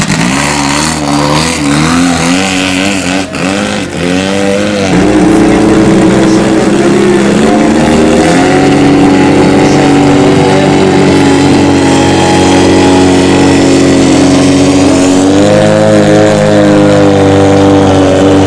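Racing powerboat engine running at high revs. The pitch wavers up and down over the first few seconds as the throttle is worked, then the engine gets louder and holds a steady note from about five seconds in.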